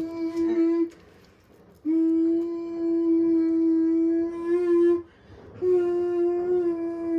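A child's voice humming long, steady held notes at nearly one pitch, breaking off briefly twice as if for breath.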